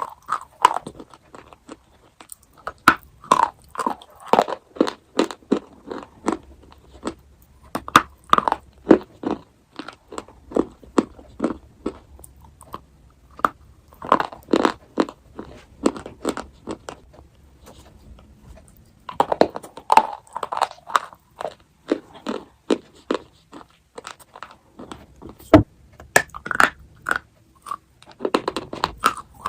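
Close-up eating sounds of chocolate: bites and crisp crunching chews in clusters, with short pauses between mouthfuls.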